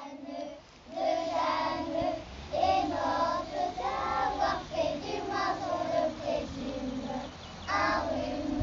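Children singing a song in phrases, with short breaks between lines.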